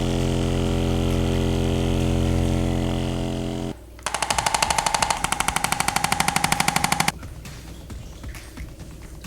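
A steady mechanical buzz for about four seconds. Then, after a short break, comes a fast rattling pulse of about ten beats a second that lasts some three seconds and stops suddenly.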